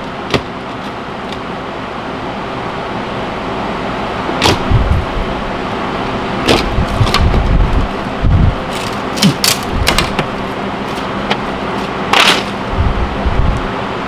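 Wooden lap siding, rotted and termite-damaged, being pried and pulled off a shed wall: a scatter of sharp cracks and squeaks as wood and nails give way, the loudest about twelve seconds in, over a steady hum.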